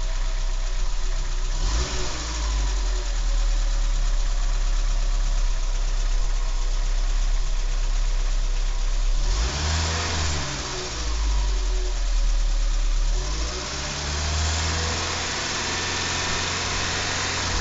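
Renault 12's four-cylinder petrol engine running, its speed rising about two seconds in and revved up and let back down several times in the second half.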